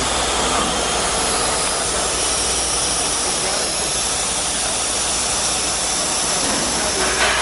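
A CNC milling machine running, a loud, steady, even whooshing noise of the spindle and machining with no clear rhythm. There is a brief louder sound near the end.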